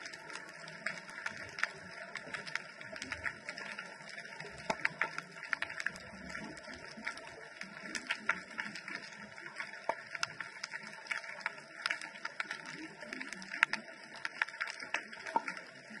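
Underwater ambience recorded through a GoPro's waterproof housing: a dense, irregular crackle of short clicks, several a second, over a steady hiss.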